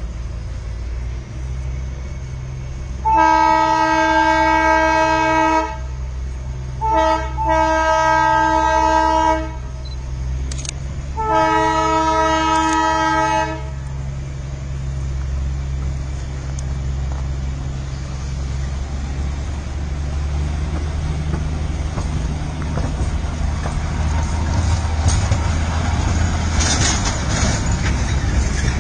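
Narrow-gauge Darjeeling Himalayan Railway train sounding its horn in three long blasts, the second led by a short toot, over the steady low rumble of the running train. In the second half the rumble grows louder and rougher, with rattling clicks, as the coaches run close by.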